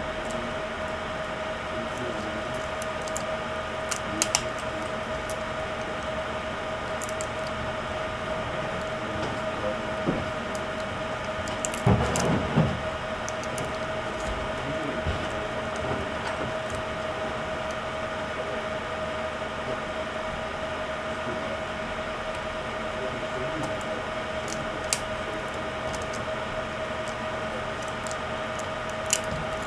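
Scattered small clicks and taps from handling laptop screen and bezel parts during reassembly, with a brief cluster of knocks about twelve seconds in, over a steady background hiss with a constant faint whine.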